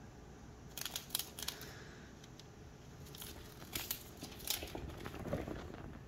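A cat batting and pouncing on a caught cicada: scattered crinkly clicks and scrapes from paws, claws and the insect's dry body, in a cluster about a second in and again from about three to five seconds in.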